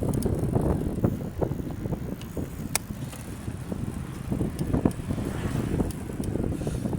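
Rumbling tyre, road and wind noise from a bicycle being ridden, with scattered light clicks and rattles and one sharp click about three seconds in.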